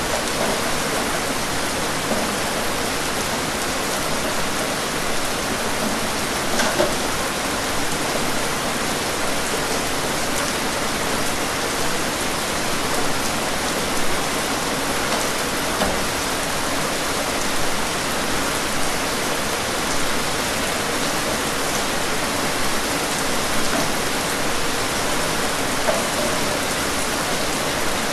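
Steady rain falling, an even hiss with a few louder drops standing out now and then.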